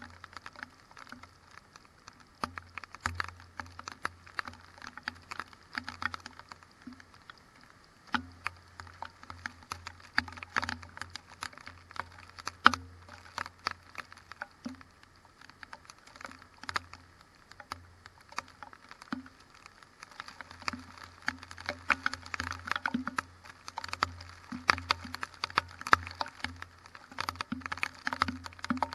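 Rain pattering in a thunderstorm: irregular sharp taps of drops landing close to the microphone, growing denser in the last third. A faint low hum comes and goes under them.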